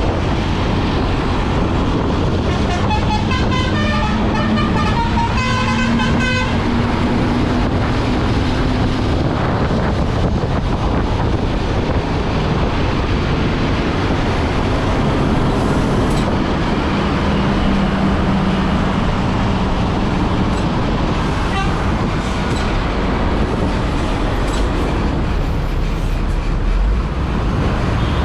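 Basuri telolet multi-tone bus horn playing a short tune of quick stepping notes about three seconds in, lasting a few seconds. Steady engine and road noise of the moving intercity bus runs under it.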